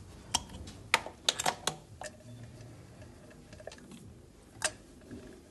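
Scattered light metallic clicks and taps from a compression tester's gauge and hose adapter being handled and moved between spark plug holes in an engine's valve cover. A quick cluster of clicks in the first two seconds, then one sharper click near the end.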